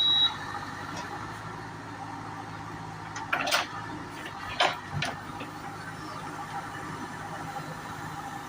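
Backhoe loader's diesel engine running steadily, with a reversing beep cutting off just at the start and two sharp clanks about three and a half and four and a half seconds in.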